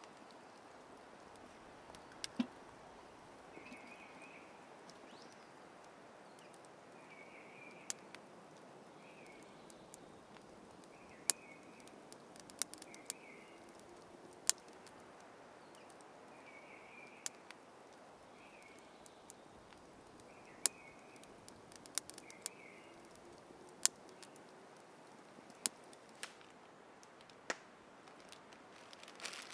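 Woodland ambience: scattered sharp crackles and pops from a small wood campfire over a steady hiss, with a bird giving short calls every second or two through the middle.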